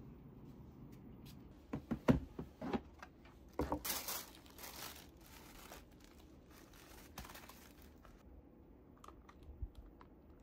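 Tissue paper rustling and crinkling, with a few knocks, as studded high-heel pumps are unwrapped from a shoebox. The loudest rustling and knocks come a couple of seconds in, then quieter handling.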